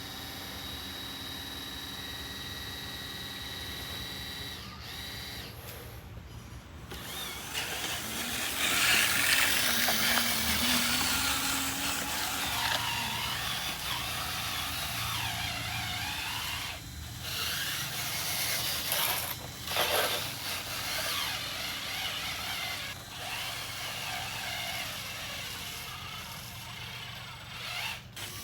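Small electric motors and gear drives of radio-controlled construction models whining, steady at first, then louder and grinding with wavering pitch from about seven seconds in.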